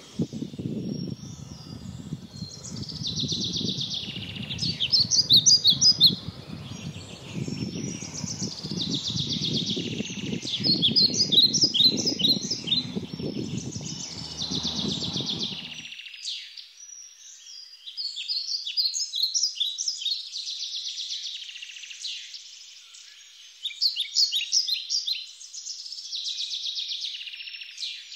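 Songbirds singing, with bright phrases of quick whistled notes repeated every few seconds. A low rumble runs underneath for the first half and cuts off abruptly a little past the middle.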